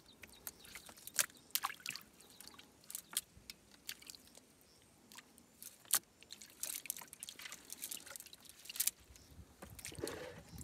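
Wet fishing net handled by hand as small fish are picked out of it: quiet, irregular soft clicks and rustles, with a few sharper clicks scattered through.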